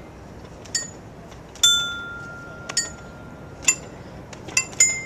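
Dance chimes floor panels sounding bright, bell-like chime notes as hands press them: about seven short, uneven strikes, one of which rings on for about a second.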